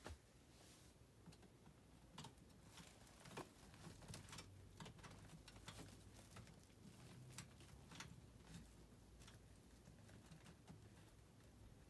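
Near silence with faint, irregular small clicks and rustling from hands working wiring and connectors inside the air handler's control compartment. A faint low steady hum sits underneath.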